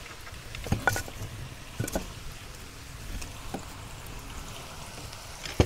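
Large firewood logs knocking as they are fed into the firebox of a wood-fired kazan stove: about five separate knocks of wood against wood and the firebox, the sharpest near the end. The logs are added to damp the heat down to a slower, longer burn.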